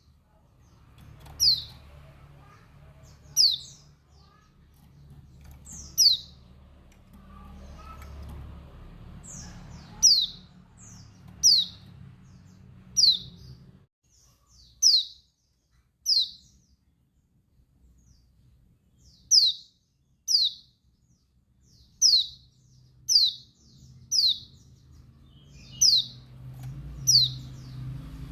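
Female white-eye (pleci, Dakun Bali type) giving its calling note: short, high chirps that sweep downward, repeated every second or two. It is the call that is played to rouse male white-eyes.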